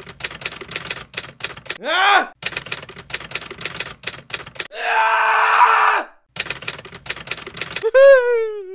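Typewriter keys clacking in quick runs. The runs are broken by a few longer sliding sounds: one about two seconds in, a noisy one around five seconds, and a falling one near the end.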